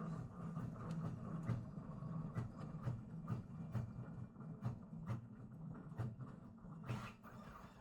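Steady low hum of soldering rework equipment, with light, irregular clicks and taps of tools on the circuit board.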